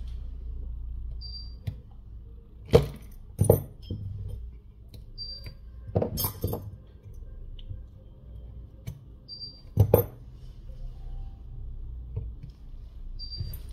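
Hands fitting new double-sided adhesive tape into an opened phone's empty battery bay: a few sharp clicks and taps of fingers and small tools on the phone and the work mat, over a low steady hum. A faint short high beep comes about every four seconds.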